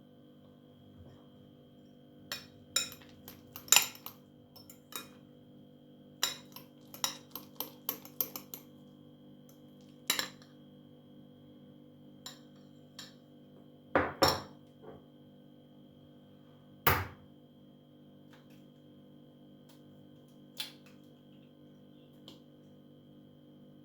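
Kitchen utensils and dishes clinking and knocking. A quick run of light clicks comes in the first several seconds, followed by a few separate, louder knocks, all over a faint steady hum.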